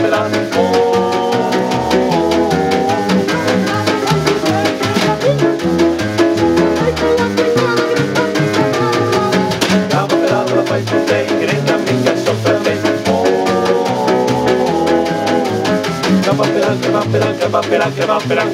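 A small swing band playing live, with no sung words: piano, upright bass and snare drum keep a steady swing beat, and held melody notes come in near the start and again about two-thirds of the way through.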